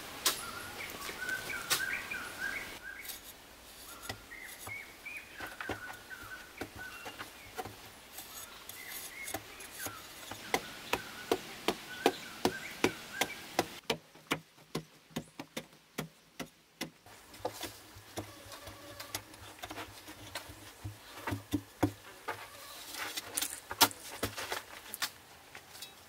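Hoe blade chopping into hard-packed earth: a string of sharp strikes, about two a second through the middle and again near the end. Birds chirp over the first few seconds.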